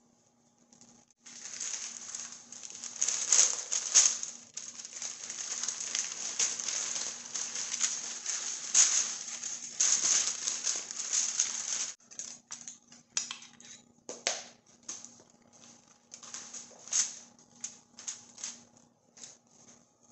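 Paper crinkling and rustling under a raw lamb shoulder as the meat is lifted and turned over on it: a continuous rustle for about ten seconds, then scattered short rustles and taps as the meat is handled.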